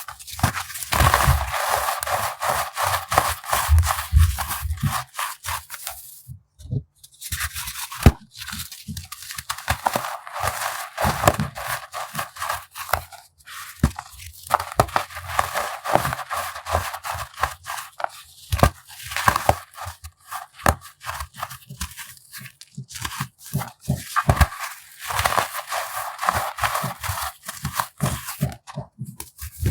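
Baking soda being crushed: dense crunching and crackling in spurts, with a brief pause about six and a half seconds in and another near the end.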